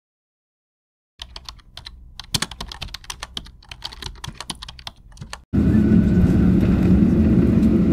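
Computer keyboard typing, a run of quick irregular key clicks starting about a second in. At about five and a half seconds it cuts to the loud, steady roar of a jet airliner landing on the runway, heard from inside the cabin, with a low hum under it.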